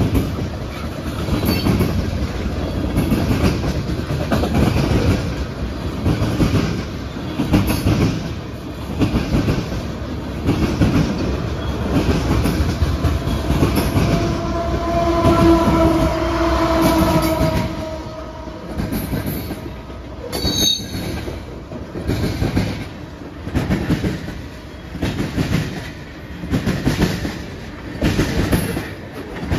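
CSX freight train's cars rolling past, the wheels clacking over rail joints in a regular rhythm. A steady whine rises out of the rumble for a few seconds around the middle, followed shortly by a brief high-pitched wheel squeal.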